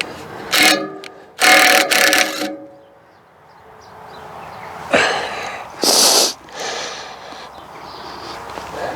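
Metal hand tools working on the blade bolts of a wood chipper: a few loud, short bursts of metallic scraping and clanking with pauses between, as the blade fixings are undone.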